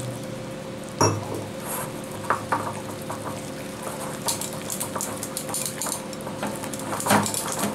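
Stainless wire whisk beating thick besan (gram-flour) batter in a bowl, its wires clicking and scraping against the bowl in a quick, irregular rhythm, with a sharper knock about a second in.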